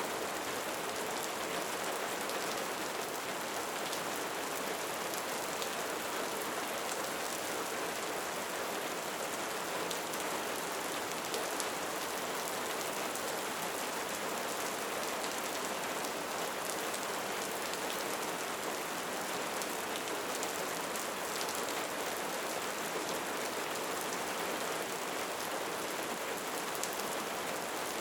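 Steady rain falling, a dense even patter of drops with no let-up.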